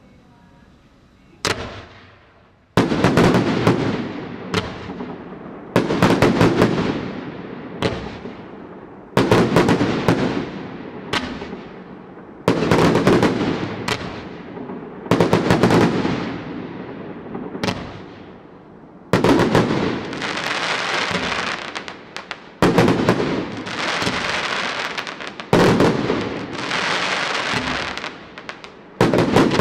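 F4 display firework cake (BFC4047) firing: a first bang, then volley after volley of sharp bangs every two or three seconds, each dying away. In the last third the bursts carry a long hissing crackle.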